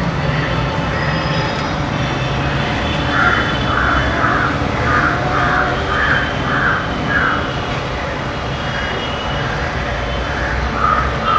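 Steady low background rumble, with a run of about ten short squeaks, roughly two a second, in the middle.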